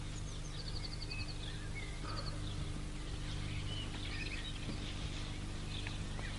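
Small songbirds chirping and calling, with a quick run of about six high notes early in the sound and scattered short chirps after, over a steady low hum.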